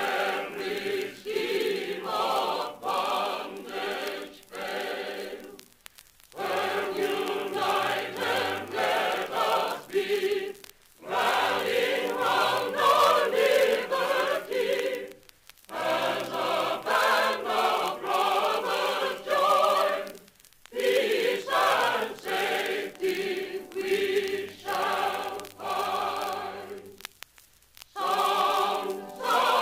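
A mixed chorus singing in full harmony on an old recording, in phrases of a few seconds with brief breaks between them.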